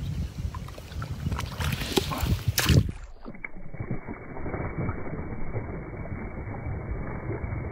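Wet cast net being handled and thrown at the water's edge: rustling and sloshing of the net, feet shifting in shallow mud, and a sharp swish about three seconds in. After that the sound turns muffled and dull, a steady low rushing noise.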